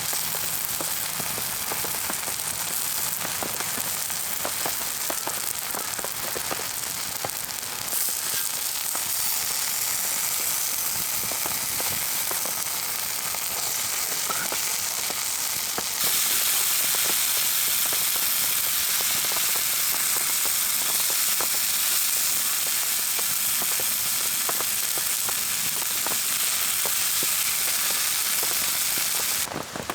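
Canned chili con carne sizzling and crackling as it heats in a pan, a dense run of fine pops that grows louder about halfway through.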